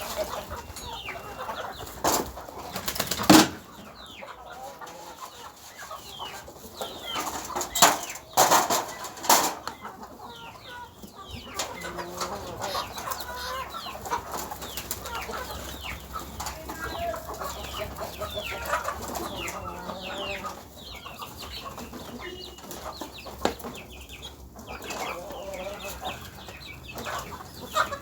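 A flock of chickens clucking and calling steadily, with several sharp, loud bursts in the first ten seconds, the loudest about three seconds in.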